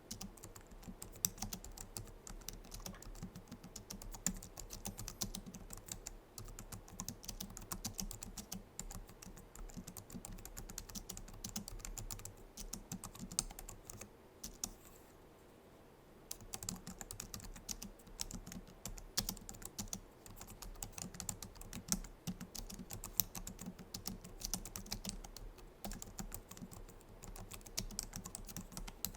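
Typing on a Logitech MX Keys low-profile scissor-switch keyboard: a quick, continuous patter of soft key clicks, with a pause of about a second and a half about halfway through.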